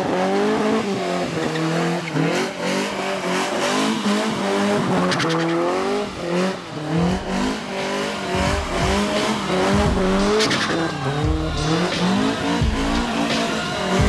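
Opel Manta B drifting: its engine revs up and down again and again while the tyres squeal as they slide on the tarmac.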